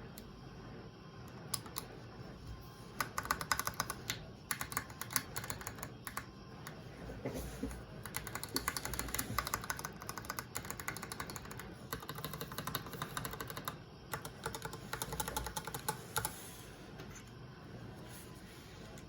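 Typing on an IDOBAO ID80 custom mechanical keyboard with Kiwi switches and PBT keycaps: quick runs of key clacks with short pauses, starting a second or two in and stopping a few seconds before the end.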